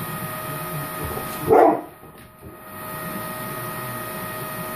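A bullmastiff barks once, about a second and a half in, at a running vacuum cleaner whose steady motor hum carries on underneath.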